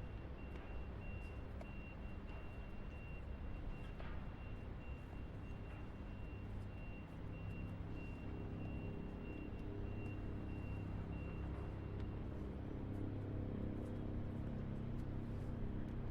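City street traffic: engines running and road noise, with a high, evenly repeated beeping that stops about twelve seconds in. A low engine hum grows louder through the second half.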